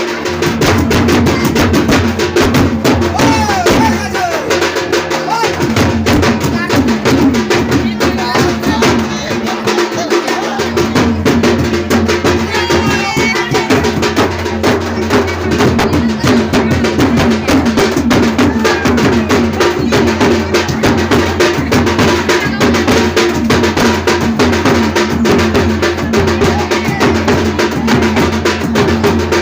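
Loud dance music with a dense, driving drum beat and a melody over it, going on without a break.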